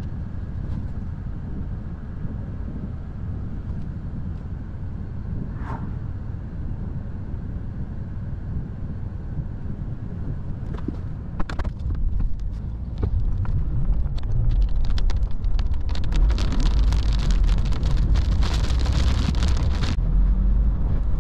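Car on the road in a thunderstorm: a steady low rumble of road and wind, with a few sharp taps about halfway. The rumble then grows, and a loud hiss of wind-driven rain builds over the last several seconds.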